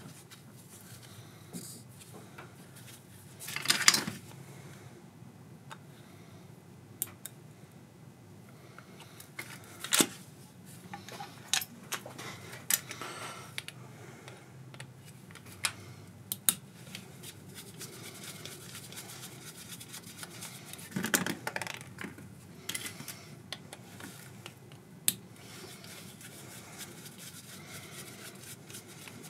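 Small metal parts and hand tools clinking and clattering on a work surface: scattered light clicks and taps, with a few louder rattling clanks, about 4 s, 10 s and 21 s in.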